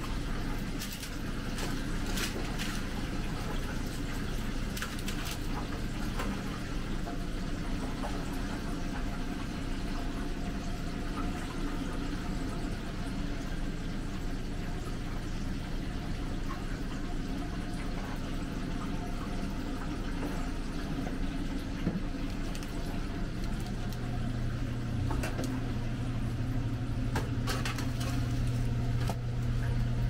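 Commercial kitchen noise: a steady hum from the deep fryer and exhaust hood, with frying oil sizzling, and a few clinks of metal tongs in the first seconds and again near the end.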